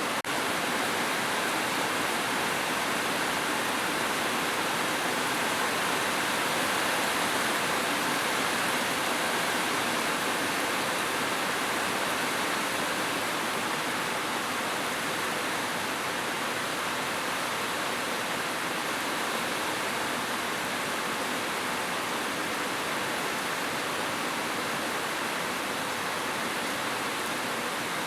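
Heavy rain falling steadily on a roof, an even, dense hiss with no thunder and no single drops standing out.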